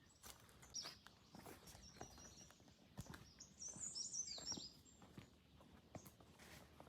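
Faint small-bird chirps, a few short high calls about a second in and again around four seconds in, over soft footsteps on a hill trail.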